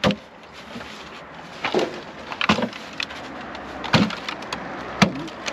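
Rusty, magnet-fished cash register being cracked open: about five irregular, sharp knocks.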